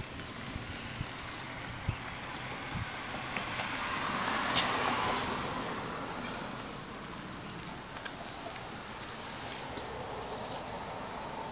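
A vehicle passing on a nearby road: a rush of tyre and engine noise swells over a few seconds and fades again, with one sharp click near the middle and a few soft footsteps on a concrete path.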